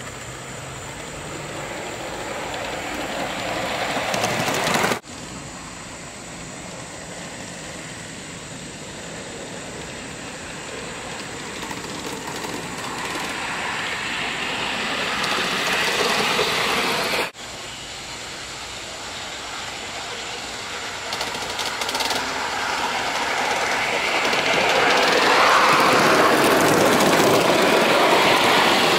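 Aster Gauge 1 live-steam model of the Union Pacific FEF-3 4-8-4 No. 844 running along the track, its running sound growing louder as it approaches. The sound breaks off abruptly twice and each time starts quieter and builds up again.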